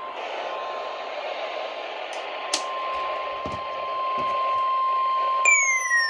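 Weather radio receiver hissing with static, with a thin steady tone held throughout. About five and a half seconds in, a loud whistle starts and glides steadily downward in pitch.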